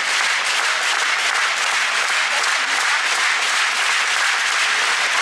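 A large arena crowd applauding steadily, a dense, even clatter of many hands clapping.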